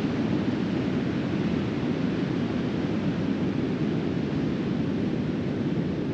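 Steady rushing noise of wind on the microphone mixed with surf from the nearby sea.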